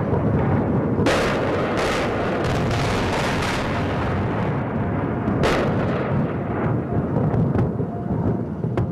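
Battle sound of explosions and gunfire: a continuous low rumble broken by a string of loud blasts in the first few seconds and another about five and a half seconds in.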